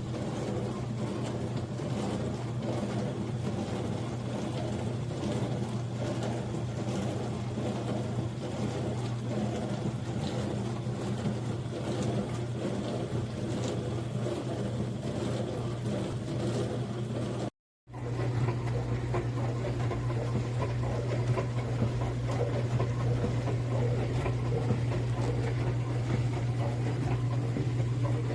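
Countertop dishwasher running a wash cycle: a steady pump-motor hum with water spraying and swishing inside the tub. There is a brief cut-out about two-thirds of the way through, after which the hum is louder.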